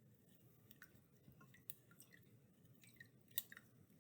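Faint dripping and squelching of soaked mint and chamomile being pressed in a strainer to wring out the liquid, with scattered soft clicks and a sharper click about three and a half seconds in.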